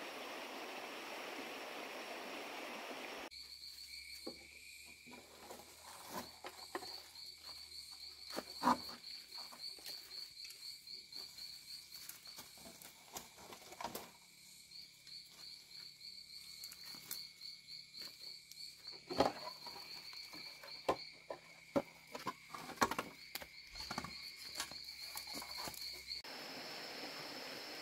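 A steady rushing hiss for about three seconds, then insects trilling in a rapid pulsed chirp over a steady high whine, with scattered knocks and rustles of something being handled. The rushing hiss returns near the end.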